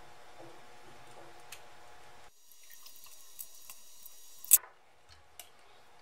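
Handling sounds of wires and a plastic panel indicator lamp: a few faint clicks and taps, with one sharp click about four and a half seconds in.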